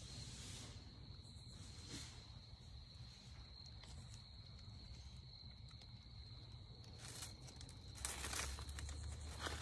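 Faint, steady, high-pitched insect chorus in the evening woods. Dry leaves rustle and crunch in short bursts from about seven seconds in, loudest near the end.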